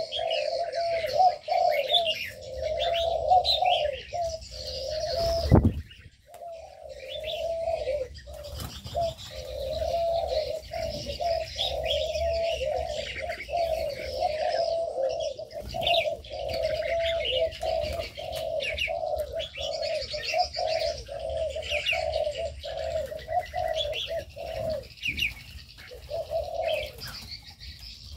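Many doves cooing together in a near-continuous chorus, with smaller birds chirping higher over it. A single low thump about five and a half seconds in.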